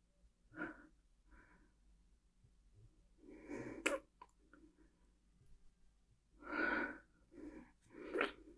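A woman's short breathy vocal sounds and breaths, half a dozen in a row without words, with a sharp click near four seconds in.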